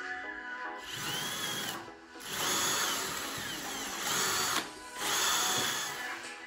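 Ferrex cordless drill boring into a wall in three runs: a short one about a second in, a longer one of about two seconds, and another short one near the end, each with the motor's whine over the bit's grinding.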